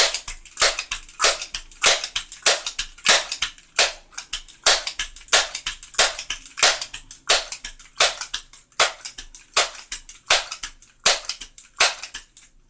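Crosman 1322 multi-pump pneumatic air pistol being pumped up: the pump arm is worked over and over in a quick, even series of short air strokes, about three a second.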